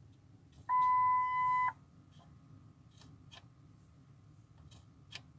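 Ford F-350 instrument-cluster warning chime: one steady electronic beep about a second long, the alert that goes with the CHECK TRAILER message on the dash. A few faint clicks follow.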